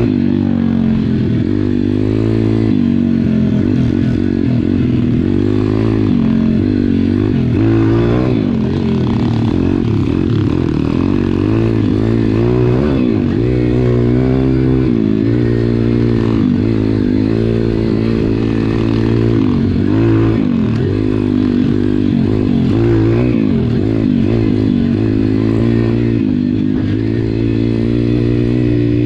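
SSR pit bike single-cylinder four-stroke engines revving up and down again and again while riding, over a steadier low engine note.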